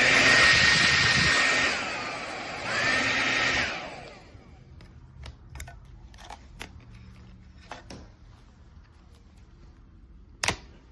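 Revlon 1875W compact folding hair dryer blowing with a steady high whine. It drops off briefly about two seconds in, comes back up, then shuts off about four seconds in. Afterwards come a few faint handling clicks and one sharp click near the end.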